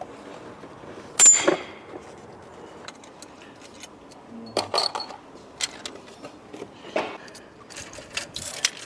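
Metal tools and engine parts clinking and clattering as a VVT cam phaser is unbolted and removed from the engine. There is a sharp metallic clink about a second in, a few more clinks near the middle, and a run of light taps near the end.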